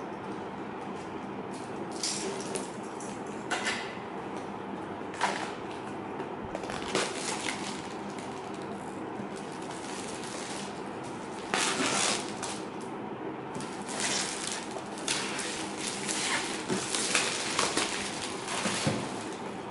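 Clear plastic shrink-wrap being torn and peeled off a cardboard laptop box, crinkling in irregular bursts that come more often near the end, over a steady low background hum.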